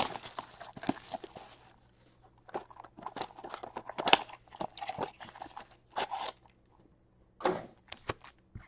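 Plastic shrink wrap being torn and crinkled off a cardboard hockey-card blaster box for about the first second and a half, then the box's cardboard flaps being pried open, with scattered clicks and short rustles.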